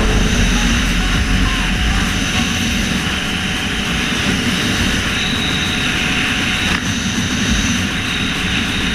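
Kawasaki Z800 motorcycle's inline-four engine running steadily while riding, mixed with a loud, steady rush of wind noise.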